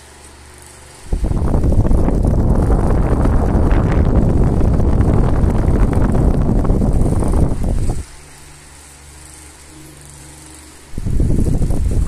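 Mondial Maxi Power 40 cm pedestal fan running, its airflow buffeting the microphone as a loud wind rumble from about a second in until about eight seconds. After that comes a quieter stretch with the fan's low, steady hum. The rumble returns about a second before the end.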